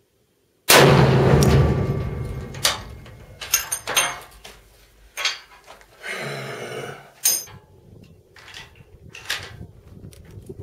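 A Barrett 99-1 .50-calibre single-shot rifle fires once, less than a second in: a very loud blast with a long fading echo. Several sharp metallic clicks and clanks follow, with a brief scraping slide about six seconds in, as the rifle is handled after the shot.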